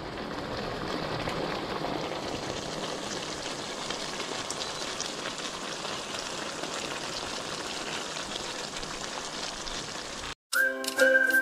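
Chicken menudo simmering in its tomato sauce in a pan, a steady bubbling crackle with fine pops. It cuts off near the end, and an upbeat jingle with a whistled tune starts.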